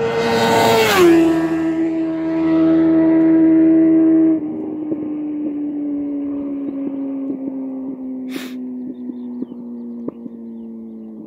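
Sport motorcycle engine at high speed passing by, its pitch dropping as it goes past about a second in. It then holds a steady, loud note as it pulls away, drops sharply in level about four seconds in, and fades with slowly falling pitch.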